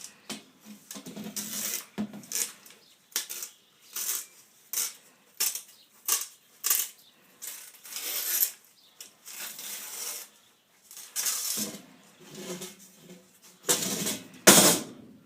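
Old window screen mesh being pulled out of its frame's channel by hand: a run of short, irregular scraping rips, with the loudest near the end.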